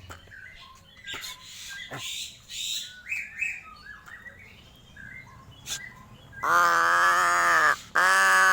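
Crow giving soft chirps, clicks and short gurgling notes, then about six and a half seconds in two loud, harsh, drawn-out caws, the second running on past the end.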